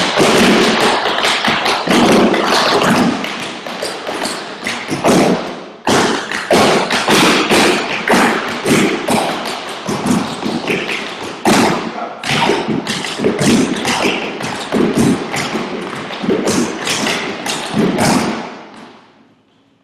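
Several tap dancers in tap shoes dancing a fast combination together on wooden tap boards: dense, rapid clattering of metal taps and heavier stomps on wood. The tapping stops near the end.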